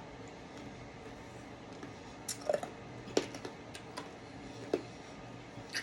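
A person chewing a piece of candy: a handful of short, scattered wet mouth clicks and smacks.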